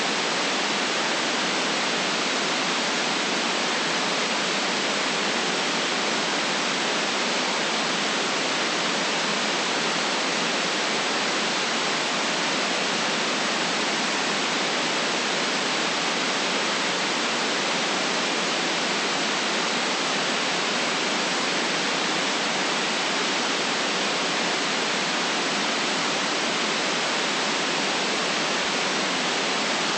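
Steady white noise: an even, unchanging hiss with no deep rumble and no top treble, and no events in it.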